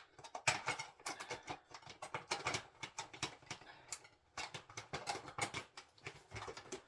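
Irregular, rapid plastic clicks and taps from a Betamax videocassette and its case being handled close to the microphone.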